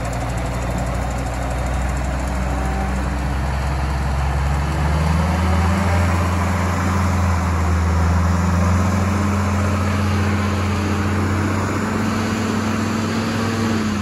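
1974 Peterbilt dump truck's diesel engine running low, then picking up revs about five seconds in and holding them as the truck pulls away, easing off near the end.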